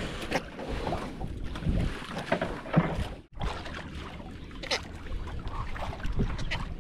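Noise aboard a small fishing boat at sea: wind and water, with scattered knocks and one brief cut-out about three seconds in.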